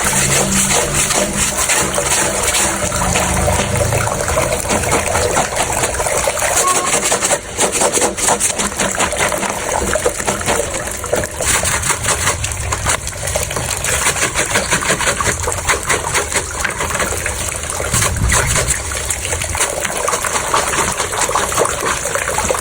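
Clothes being washed by hand in water: continuous splashing and gushing water with irregular sloshes.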